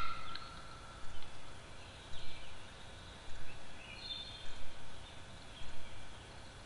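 An unidentified bird giving faint calls that slide in pitch, about two seconds in and again about four seconds in, over steady outdoor background noise.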